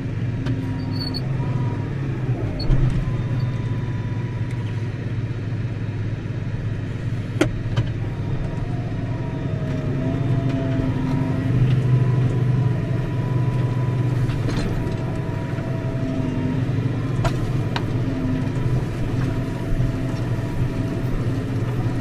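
Tractor engine running steadily, heard from inside the cab, with a few sharp clicks.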